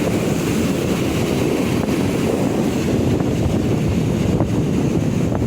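Wind buffeting the microphone in a steady low rumble, over the wash of sea waves on the shore.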